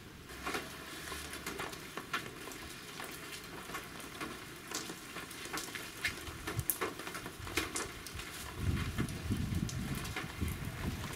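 Large, scattered raindrops of a sudden thundershower striking hard surfaces as separate sharp ticks and taps. About eight seconds in, a low rumble comes in underneath.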